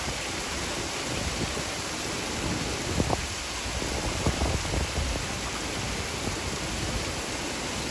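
Heavy rain pouring down steadily with big drops. There are a few sharper taps of drops about three and four and a half seconds in.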